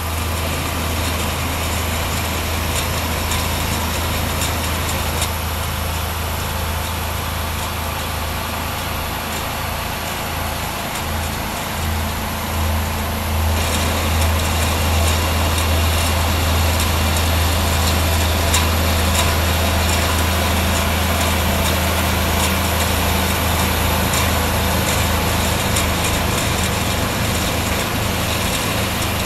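Steady machinery noise of a tomato processing line, from conveyors and motors: a deep hum with a wide hiss over it. It gets louder and brighter about 13 seconds in.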